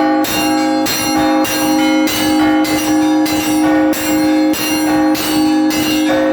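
Russian Orthodox church bells rung in a continuous peal: several bells of different pitch struck in a quick repeating pattern, a fresh stroke roughly every half second, while the deeper bells ring on underneath.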